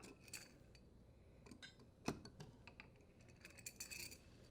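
Faint, scattered light clicks and small metallic taps over near silence, the sharpest about two seconds in and a few more close together near the end.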